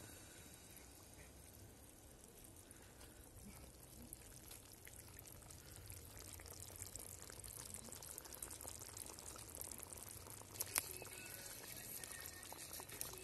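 Pork liver stewing in a cast-iron kazan over a campfire: faint sizzling and bubbling that grows louder over the second half, with one sharp clack near the end as the lid comes off.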